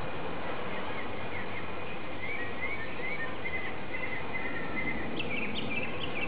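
Steady outdoor background noise with a run of short, high chirps through the middle, and a few sharper chirps near the end.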